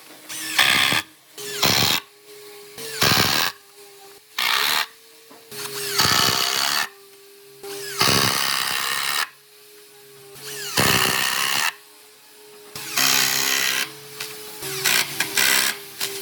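A handheld power tool working wood in short repeated bursts, each lasting about half a second to a second, with brief pauses between them. A faint steady tone runs underneath throughout.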